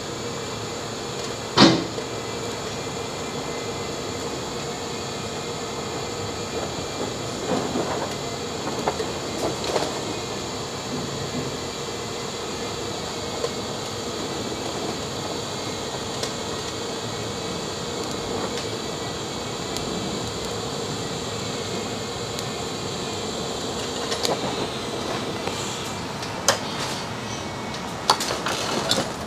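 TIG welding arc buzzing steadily while a downpipe is welded, the high part of the buzz stopping near the end. A loud sharp click comes near the start, and a few light metal clicks come near the end.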